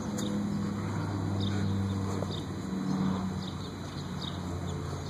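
A steady low hum like a distant engine, swelling slightly and easing off near the end, with faint scattered ticks and crunches from a dog gnawing a torn basketball.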